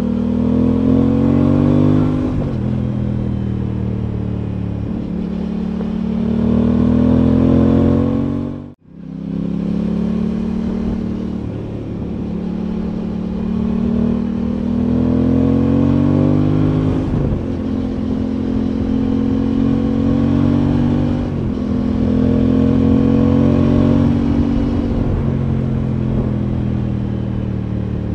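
Aprilia Tuono 660's parallel-twin engine under way, its pitch climbing slowly as the bike accelerates and dropping back several times. The sound cuts out for an instant about nine seconds in.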